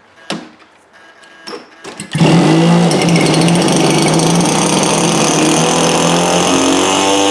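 Small two-stroke gasoline engine of an RC model plane catching about two seconds in after a few sharp clicks, then running steadily at idle with the carburettor throttled down to about 20%. Its pitch steps up a little near the end.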